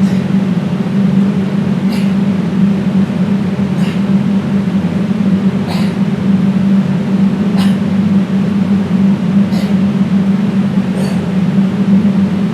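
A loud, steady low hum over constant noise, with a short swish about every two seconds.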